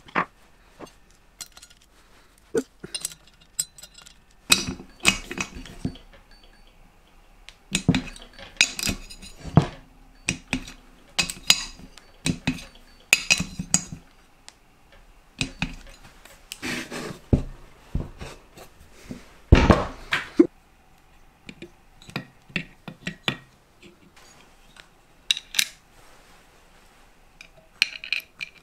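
Small steel nuts and hand tools clinking on an aluminium cylinder head, with runs of quick ratchet clicks from a torque wrench tightening the head nuts. The sounds come in short clusters of knocks and clicks.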